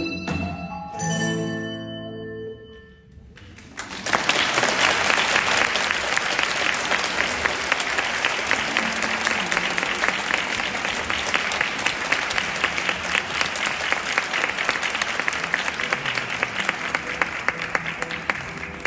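A last chord from a handbell ensemble and classical guitar rings and dies away, then after a brief gap the audience breaks into steady applause that slowly thins near the end.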